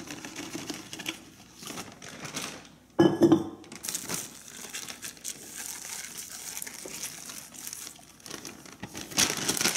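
Plastic bags crinkling and rustling as raw chicken breasts are handled and lifted out of their packaging, with one loud crackle about three seconds in.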